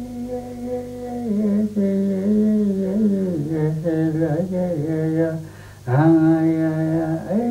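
A single voice chanting in long, held notes that slide from one pitch to the next. It breaks off briefly about six seconds in, then goes on.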